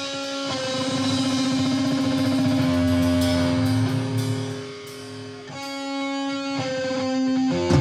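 Electric guitars of a live rock band playing sustained, ringing chords and notes, dipping quieter about five seconds in; sharp drum hits come in near the end.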